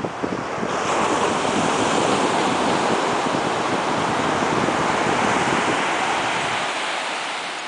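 Ocean surf washing up the beach, a steady rush of water that swells about a second in and fades near the end.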